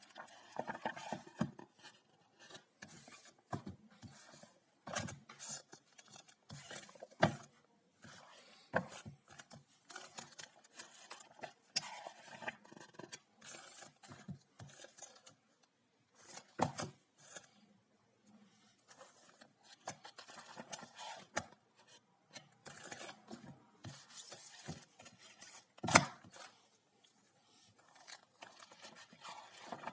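Unpacking a parcel of books: irregular rustling and scraping of packaging, with sharp clicks and knocks, the loudest about 26 seconds in.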